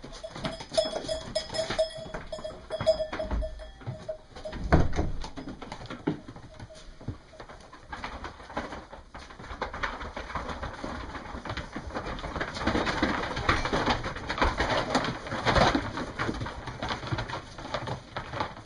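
A pigeon cooing in the first few seconds, then a pen of sheep shuffling and being handled on a wooden barn floor, with one loud thump about five seconds in.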